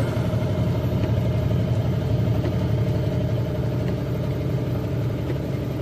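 Steady engine and road noise heard from inside a vehicle's cabin, an even low hum with no change.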